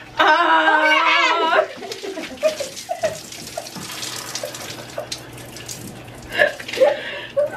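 Soda poured from bottles over a person's head, splashing and dripping onto a shower floor. It follows a loud high-pitched cry at the start, and more voice comes near the end.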